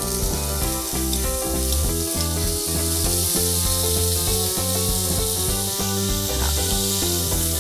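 Bacon pieces sizzling in hot palm oil in a stainless steel frying pan, a steady hiss, with background music underneath.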